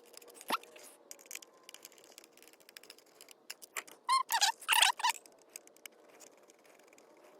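Small clicks and taps of handling screws and plastic steering-column parts while fitting a turn signal switch, with a short squeak near the start and a few wavering squeaks about four to five seconds in.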